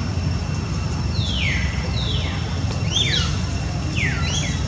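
Four short, high-pitched animal calls about a second apart, each sliding down in pitch, over a steady low rumble and a faint steady high whine.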